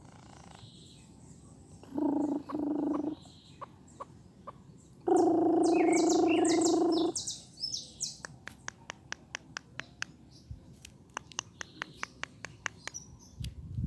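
Pet bird chirping: many sharp, high, very short chirps in quick succession. There are also three louder held sounds of steady pitch, two short ones and then one of about two seconds.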